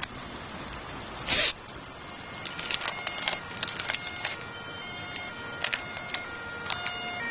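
Fabric rustle and crinkling paper as an envelope of banknotes is pulled from an inside jacket pocket and opened: a short swish about a second in, then a run of fine crackles and clicks from the paper.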